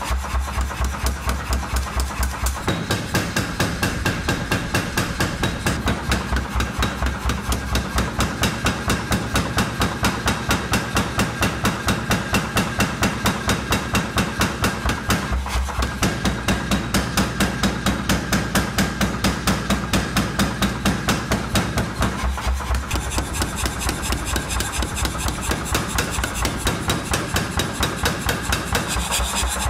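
Power hammer pounding a red-hot steel knife blank on its die in a fast, even rhythm of blows, several a second, drawing out the blade. A steady low hum runs under the blows.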